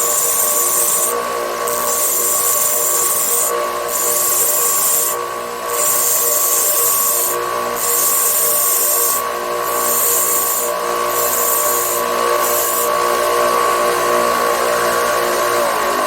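Power tool running steadily with a constant high whine, and a high hiss that cuts in and out every second or two as it works.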